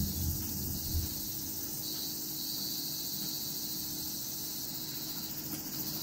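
Insects in the garden making a steady, high-pitched drone, with a few soft low knocks in the first second.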